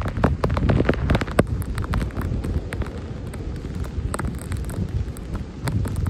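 Blizzard wind buffeting a phone's microphone in a dense low rumble, with irregular sharp crackling clicks over it, thickest in the first second and a half.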